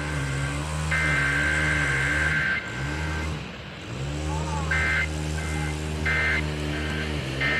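Emergency Alert System SAME digital data bursts played over a radio, the harsh buzzing two-tone data signal of an EAS test: two long bursts, then a run of short bursts from about five seconds in, over a low steady hum.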